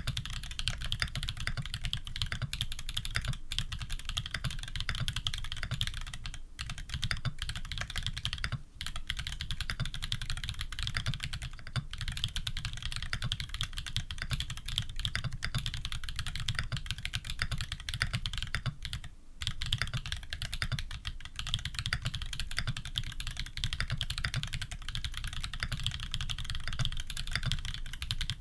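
Fast, continuous typing on a Leaf65 custom mechanical keyboard with Holy Panda tactile switches, a brass plate and PBT keycaps, with brief pauses in the stream of keystrokes.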